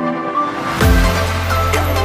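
Electronic intro music for a channel ident: a melodic line, then about three-quarters of a second in a swell and a heavy, deep bass drop come in and carry on under the melody.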